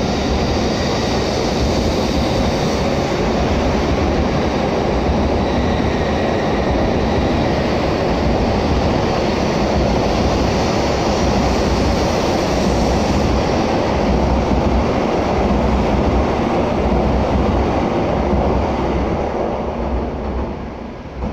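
N700S Shinkansen train departing the station, its cars rolling past with a steady, loud running noise that fades away near the end as the last car leaves.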